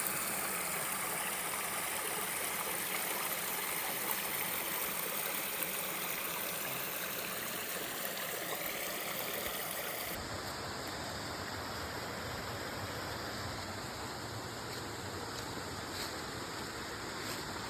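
Steady rushing of stream water over rocks. About ten seconds in it abruptly turns slightly quieter and duller.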